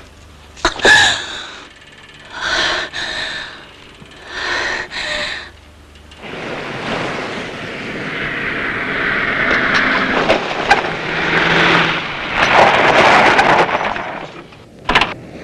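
Three short breathy gasps in the first few seconds, then a long rush of noise that swells and fades, with a sharp burst near the end.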